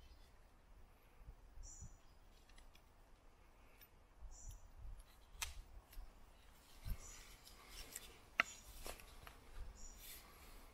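Joker Nessmuk knife blade shaving and carving wood, with short scraping strokes every second or two and a few sharp clicks, the sharpest one near the end.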